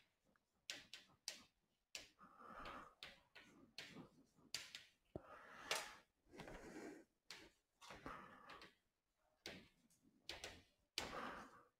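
Chalk on a blackboard as words are written: faint irregular taps and short scratching strokes.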